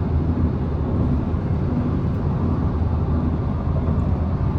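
Steady road and engine noise of a moving car heard from inside the cabin: a constant low rumble.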